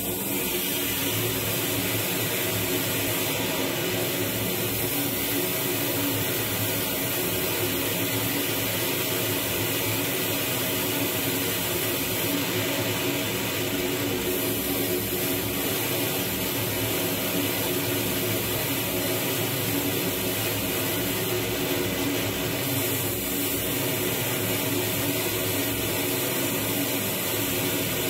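Dense, steady electronic noise drone generated with the frakMSP suite in Max/MSP: a broad hiss with many held tones layered beneath it, at an even level. A brighter, higher hiss swells in and out a few times.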